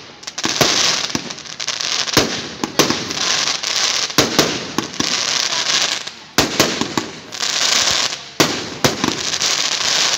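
Aerial firework shells bursting overhead: repeated sharp bangs, some in quick pairs, over dense crackling from gold crackling stars.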